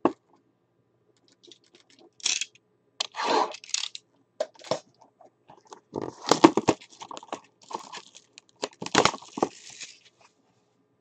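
Plastic wrapping being torn and crinkled off a sealed box of 2013 Panini Prominence football cards, in irregular rustling bursts with small clicks.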